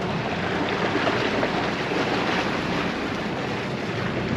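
Steady wind and sea noise on a boat under way at slow trolling speed: water rushing and splashing along the hull, with wind on the microphone.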